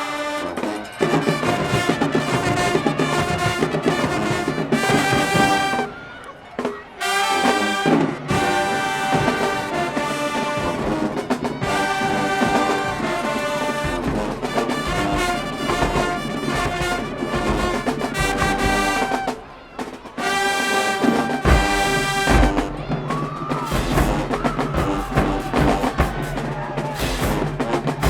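High school marching band's brass section playing loud held chords, with two short breaks in the music. Low drum hits come in partway through.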